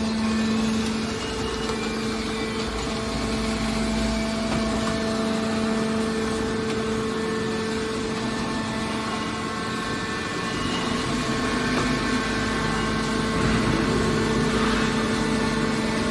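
Hydraulic baler's power unit, its motor and hydraulic pump, running with a steady hum that gets a little louder near the end.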